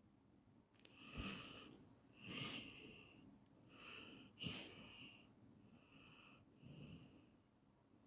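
A sleeper snoring faintly: after a short quiet, a run of breathy snores comes roughly once a second, each with a high hissing whistle.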